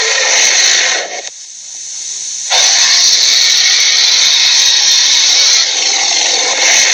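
Creature sound effect for the 'Lochnessgator': a loud, harsh, rasping hiss with no clear pitch. It breaks off about a second in, then comes back at full strength for the rest.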